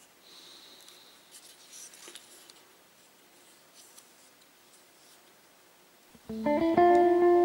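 Faint scraping and clicking of laser-cut plywood model parts being fitted by hand. About six seconds in, louder instrumental music starts suddenly with sustained notes.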